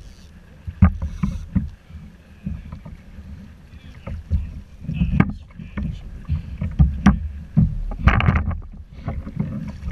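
Wind buffeting a GoPro action camera's microphone as an uneven low rumble. Sharp knocks and clatter come from a fish being handled on a lip-grip tool aboard a plastic kayak, with a short rush of noise about eight seconds in.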